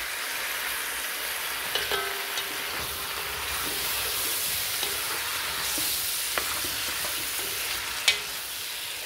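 Sliced potatoes sizzling in hot oil in a pot, a steady frying hiss. Now and then a spatula clicks and scrapes against the pot, with the sharpest knock about eight seconds in as the potatoes are stirred.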